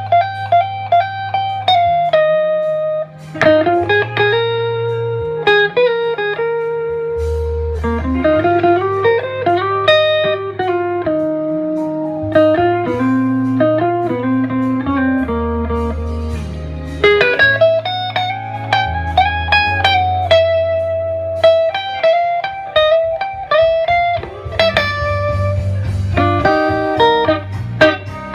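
Electric guitar, a Gibson ES-339 through a Gibson GA-30RVS amp, playing a melodic single-note lead line with string bends and slides, over a bass line.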